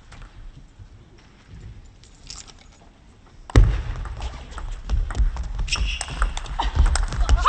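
Table tennis: a few faint ball taps, then about three and a half seconds in a rally starts with a sudden loud knock, and the ball clicks sharply off bats and table among low thumps.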